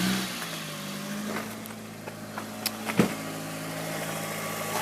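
Car petrol engine idling steadily, with a few isolated faint clicks.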